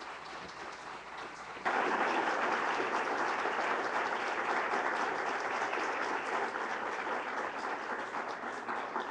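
Audience applauding. The applause swells abruptly about two seconds in, then slowly dies down.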